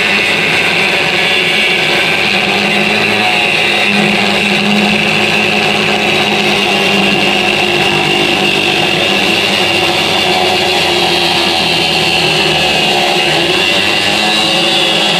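Angle grinder with an abrasive cut-off disc cutting through a metal bracket corner, running steadily with a high whine.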